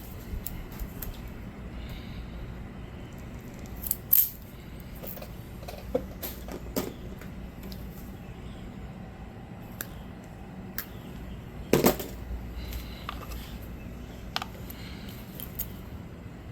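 Small hand tools and wiring parts being handled: scattered clicks and clinks, with two louder knocks about four and twelve seconds in.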